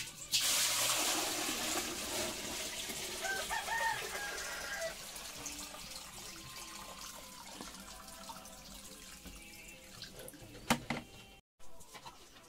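Water poured from a plastic bowl splashes into the copper cooling vessel on top of a traditional raksi still, refilling the condenser water. The pour is heaviest at first and eases off after about five seconds, with a couple of sharp knocks near the end.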